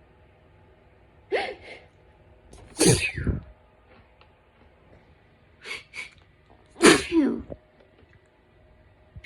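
A person sneezing twice, about four seconds apart, each sneeze preceded by two quick gasping breaths in; hay-fever sneezes.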